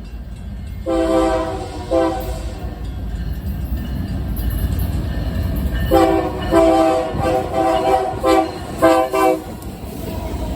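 Freight locomotive's multi-chime air horn played as a horn show: two blasts about a second in, then a run of short, choppy blasts from about six seconds in. A low rumble from the moving train runs underneath.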